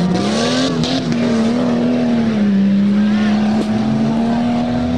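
Four-wheel-drive tuff truck's engine revving hard and held at high revs, a steady high tone that sags slightly about halfway through.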